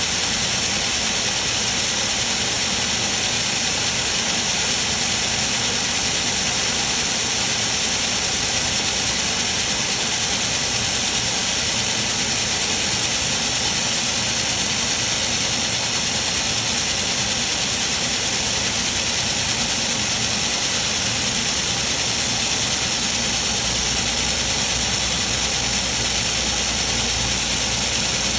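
Steady hiss and machine hum of a robotic laser welding cell at work, with a low hum joining near the end.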